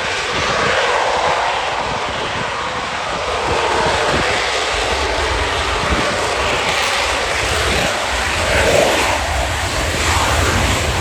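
Fixed-wing aircraft flying past: a loud, steady rushing engine noise whose tone shifts slowly as it passes.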